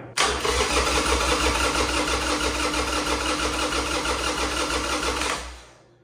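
Harley-Davidson V-twin's electric starter cranking the engine over for about five seconds with an even, pulsing beat, then winding down as the button is released. The engine turns over but never fires: a crank-but-no-start.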